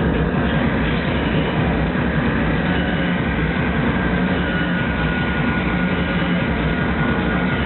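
Loud live industrial noise music through a concert PA: a dense, distorted wall of noise over a steady low drone, with no clear beat.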